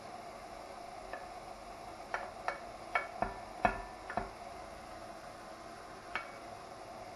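Spoon knocking and scraping against a ceramic plate and the pan while chopped prawns are scooped into the pan: about eight sharp clicks, some ringing briefly, most of them bunched between two and four and a half seconds in. Underneath, faint steady sizzling from the pan.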